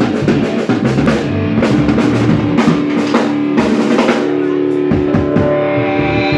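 Live rock band playing: drum kit, electric guitar and bass guitar. About five seconds in the drums stop and a held guitar chord rings on over the bass.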